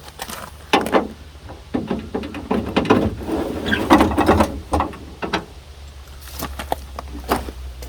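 A 1954 DeSoto's inside door handle and replacement door latch being worked: a series of short mechanical clicks, clacks and knocks, bunched in the middle.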